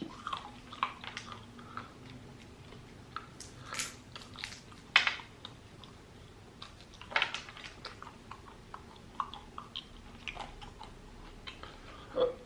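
Close-up chewing and crunching of roasted peanuts, with scattered sharp crunches and clicks, the louder ones about 4, 5 and 7 seconds in.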